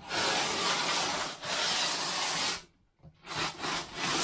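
Rasping, scraping strokes: two long ones of about a second each, then three short ones near the end.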